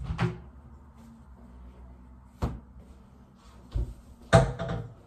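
Bathroom vanity cabinet door being opened and shut while towels are put away: several sharp wooden clunks, the loudest a short rattling clatter about four and a half seconds in.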